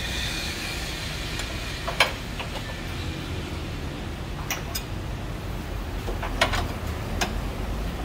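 A handful of short, sharp metallic clinks as hand tools work on bolts on a car's underside, the loudest about two seconds in and a little after six seconds, over a steady low workshop rumble.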